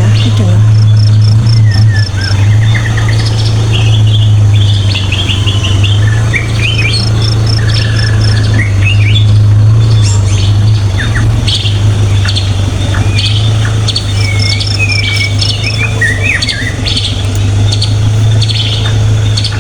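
Several birds calling and singing, with chirps and whistled gliding notes, and a run of about six quick high pips that comes three times. Under them runs a loud, steady low hum.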